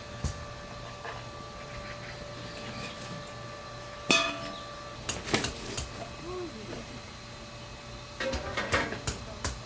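Scattered clinks and knocks of objects being handled: one sharp ringing clink about four seconds in, a few lighter knocks after it, and a short run of clattering near the end.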